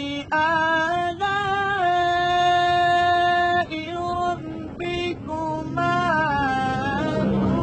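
A man's voice reciting the Qur'an in melodic Arabic chant, drawing out long held notes with ornamented, wavering turns. The longest note is held for nearly two seconds, starting about two seconds in.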